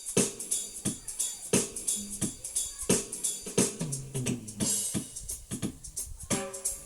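Music: a steady drum beat of kick, snare and hi-hat hits, with a low bass line coming in around the middle.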